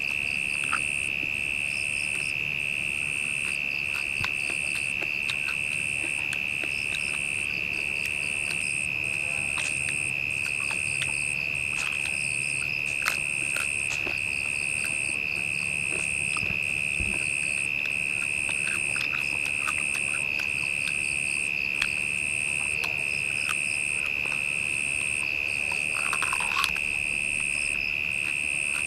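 Rainforest insect chorus: a steady, high-pitched drone with a second, higher chirp repeating at even spacing roughly once a second, and a few faint trills. Scattered soft clicks and knocks sound over it.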